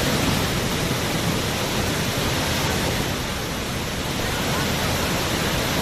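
Waterfall rushing steadily, a rain-swollen fall pouring heavily over rocks.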